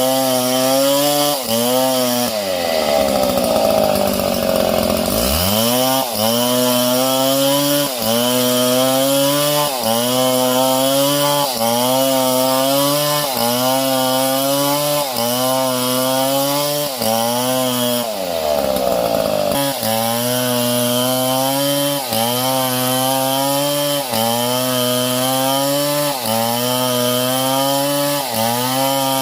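Small chainsaw running and cutting wood, its engine note wavering about once a second. Twice, about two seconds in and again near eighteen seconds, the pitch falls steeply and then climbs back.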